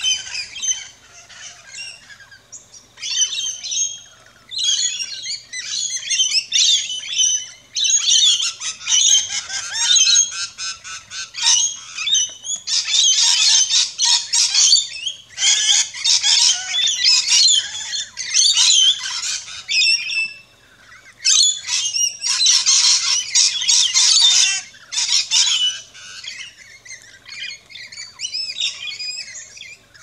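A flock of rainbow lorikeets chirping and squawking, in dense runs of shrill screeching broken by a few short lulls.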